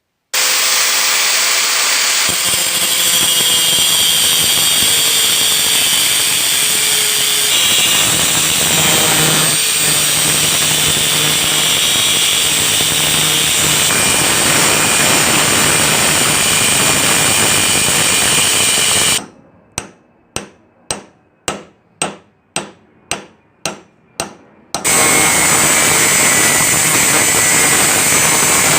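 A power tool runs steadily on steel, then stops for about a dozen sharp hammer blows on metal at roughly two a second, then starts up again near the end.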